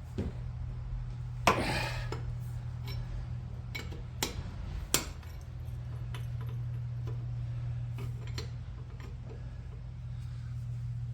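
Metal clinks and knocks of a lug wrench and locking-lug-nut key working on a car wheel's lug nuts as they are broken loose, with one louder clank about a second and a half in. A steady low hum runs underneath.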